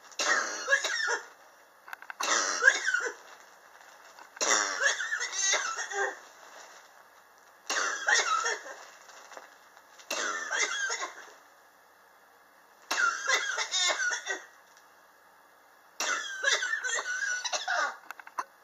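A person coughing in seven short fits, each a quick run of coughs, with brief pauses between them: a chronic cough that the sufferer blames on extreme temperature changes in the apartment.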